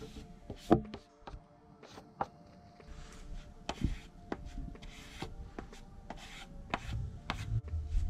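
A plastic spreader scraping and smoothing two-part epoxy fairing compound over an outboard motor cowling, in irregular rubbing strokes with a few sharp scrapes.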